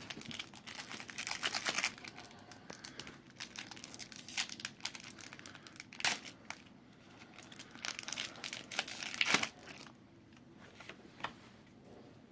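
A Pokémon booster pack's foil wrapper is being crinkled and torn open, making irregular crackling for most of the stretch. It goes quieter near the end.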